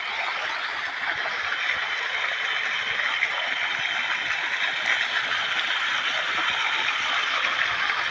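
A jet of water gushing from a pipe outlet and splashing down into a pond, a steady rushing splash.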